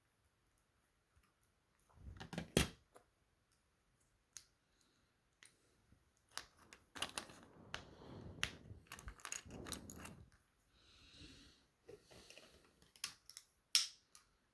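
Plastic Lego pieces clicking and clattering as they are handled and pressed together. The loudest clicks come a couple of seconds in, with a longer run of clatter in the middle.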